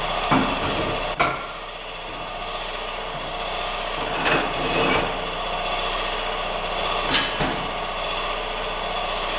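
Sharp knocks of tools working a tire off a wheel on a tire changer, about six of them in pairs, over a steady loud running noise from an air compressor.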